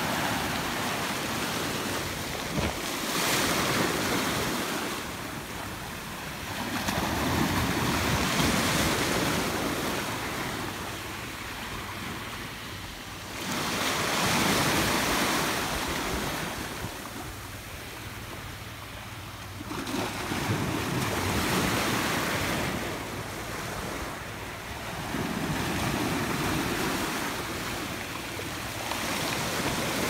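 Atlantic surf breaking on a rocky shore, its wash rising and falling in slow swells every five to seven seconds.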